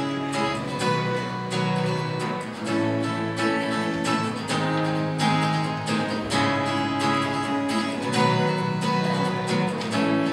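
Acoustic guitar strummed in a steady, even rhythm of chords: the instrumental intro of a song.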